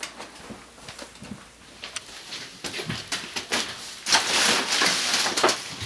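Footsteps and small knocks of someone crossing a cluttered room. About four seconds in, a loud, brief clattering rattle as slatted window blinds are pushed apart.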